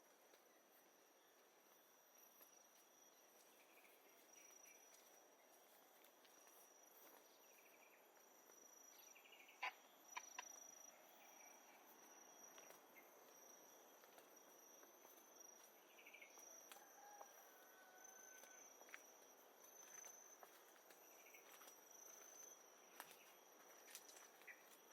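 Faint tropical jungle ambience: insects keep up a steady high-pitched trill, with scattered short chirps and a few sharp clicks about ten seconds in.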